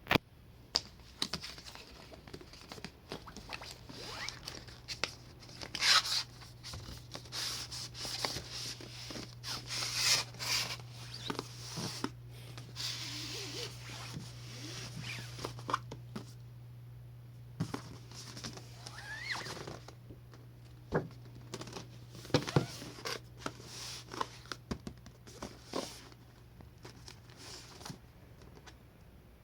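Typing on a Yunzii Keynovo IF98 mechanical keyboard with brown tactile switches: irregular keystroke clacks, in quick runs at times, over a steady low hum.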